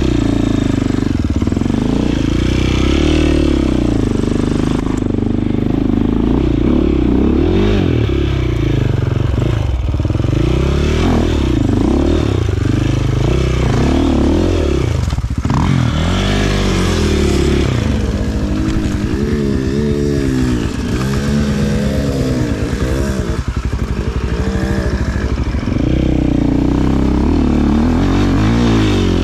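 Enduro dirt bike engine heard close from on the bike, revving up and down over and over as the rider works the throttle on a steep, rough forest climb; the pitch swings in quick rises and falls, with a run of short revs in the second half.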